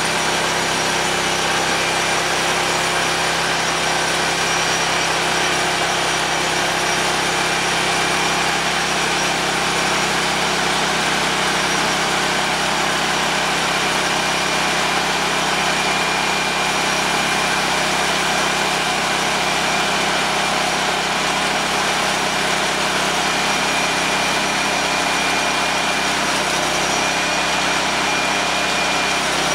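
Portable bandsaw sawmill's engine running steadily at a constant speed, driving the band blade.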